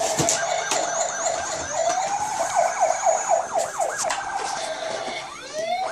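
Electronic siren sound from a battery-powered children's toy, set off by its buttons: a wailing tone that speeds into a rapid up-and-down yelp in the middle and rises again near the end, with a few clicks and knocks.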